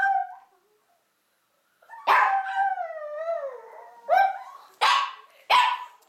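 Chihuahuas howling: one long howl of about two seconds that falls in pitch, starting about two seconds in, then three short sharp yips in quick succession.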